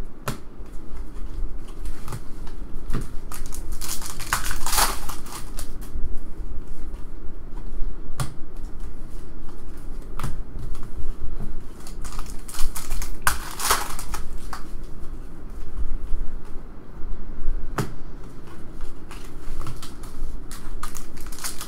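Trading cards handled by hand: scattered light clicks and taps of card edges, with three longer rustling swishes as cards slide against each other.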